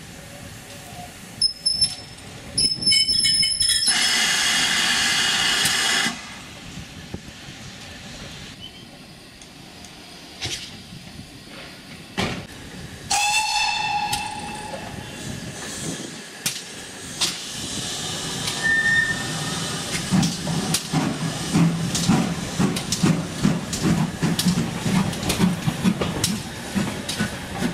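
Steam locomotive whistle sounding for about two seconds, then a shorter whistle about ten seconds later. Over the last ten seconds the locomotive is working, its exhaust beats and steam getting louder.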